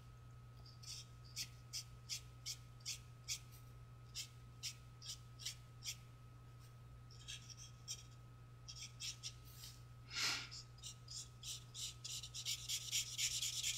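Tip of a Stampin' Blends alcohol marker tapping and stroking on paper while colouring: soft quick ticks about two a second, then denser scratchy strokes from about seven seconds in, over a faint steady electrical hum. One louder breath about ten seconds in.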